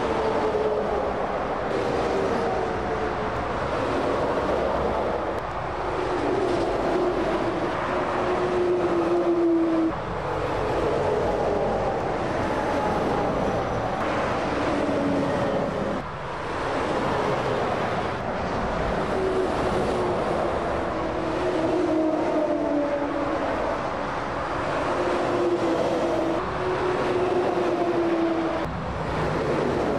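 Heavy lorries and other traffic passing at motorway speed: a continuous rush of tyre and engine noise. As each truck goes by, its hum drops in pitch, and one pass follows another.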